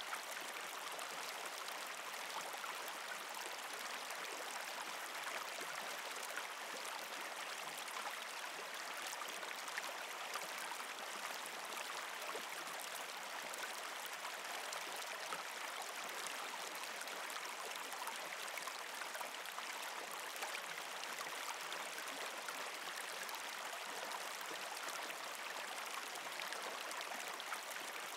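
Running water, a stream flowing steadily with fine trickling, as a continuous ambient bed.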